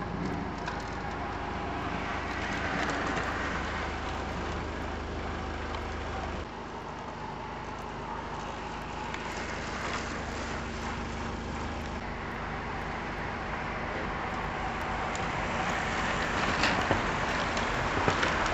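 Road noise of passing motor vehicles: a steady rushing sound that changes abruptly about six and twelve seconds in and grows louder near the end, with a few sharp clicks.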